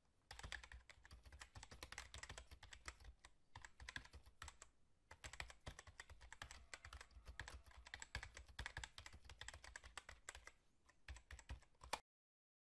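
Faint computer keyboard typing sound effect: rapid, uneven key clicks that stop abruptly near the end.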